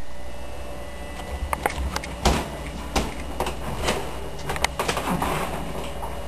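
A series of irregular knocks and clicks, the loudest a little past two and three seconds in, like a door and its frame being handled.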